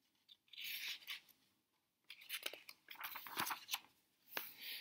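A picture book's paper page being turned: faint rustling and sliding of paper, a short rustle about half a second in, then a longer run of rustles and small crinkles from about two seconds on.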